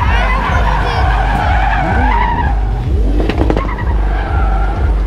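Drift car's tyres screeching through a long slide while its engine revs rise and fall, with a regular low thump underneath.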